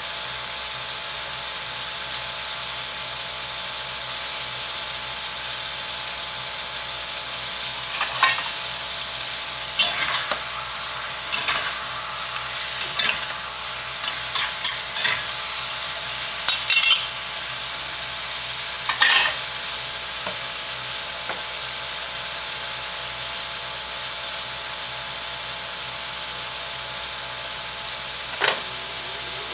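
Beef and celery stir-frying in a hot pan: a steady sizzle, with a run of short scraping stirring strokes in the middle and one more near the end.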